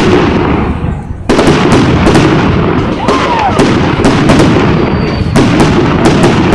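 Fireworks display: a rapid, continuous barrage of bangs and booms with crackling. It dips briefly about a second in, then a loud volley resumes.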